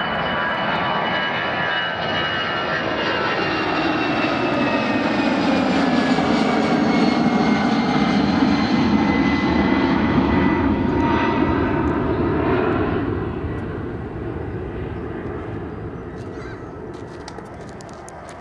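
Airbus A319 jet engines at takeoff power as the airliner climbs away: a loud rushing roar with a high whine that slowly falls in pitch. It swells to its loudest around the middle, then fades away over the last several seconds.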